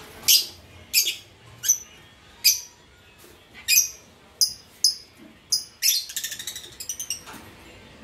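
Blue lovebirds giving short, shrill chirps, about a dozen at irregular spacing, with a quick rattling run of chatter about six to seven seconds in.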